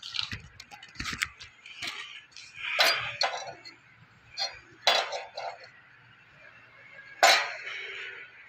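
Thin sheet-metal pieces clinking and knocking against a steel bar as they are picked up and handled: about six sharp metallic knocks with brief ringing, the loudest near the end, over a faint low hum.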